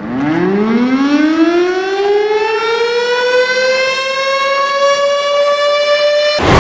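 A siren winding up. Its pitch rises steeply at first, then more slowly, and levels off into a steady wail. It is cut off by a sudden loud burst of noise near the end.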